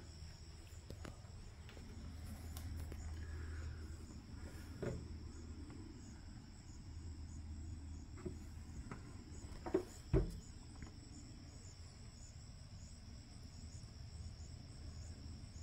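Faint steady high-pitched chirring of insects, over a low hum, with a few soft knocks and clicks, the clearest about five seconds in and twice around ten seconds in.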